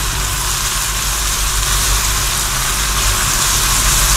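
Onion-garlic masala paste sizzling steadily in hot oil in a metal pan, over a steady low hum.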